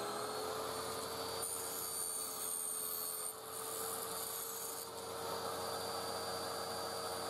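Table saw running with a steady hum while a strip of plywood is crosscut on a sled. A higher, thinner sound rides over the motor from about a second and a half in to nearly five seconds, while the blade is in the wood.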